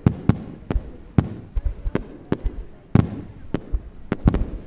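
Starmine fireworks barrage: aerial shells bursting in rapid succession, with sharp bangs coming irregularly about three or four a second and a low rumble after each.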